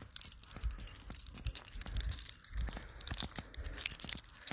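Rustling and crackling handling noise from a phone microphone rubbed by hand or clothing while being carried on a walk, with many small clicks and soft, irregular low thumps.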